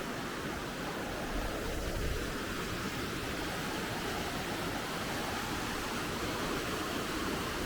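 The River Derwent in spate, swollen after heavy weather: a steady rush of fast-running water.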